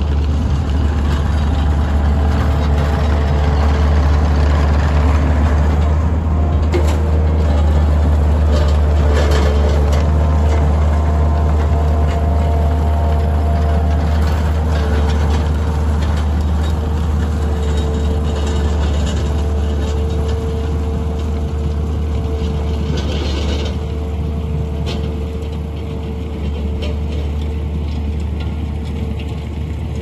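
Takeuchi TL140 compact track loader's diesel engine running steadily as the machine tracks across the dirt, with a low drone and a steady higher whine over it. The sound eases a little near the end as the machine moves off.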